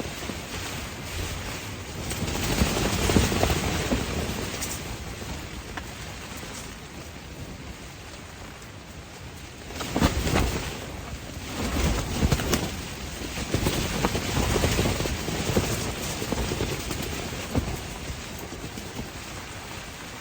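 Strong wind gusting and rushing, with low rumbling buffeting; it swells about two seconds in and again from about ten seconds, then eases.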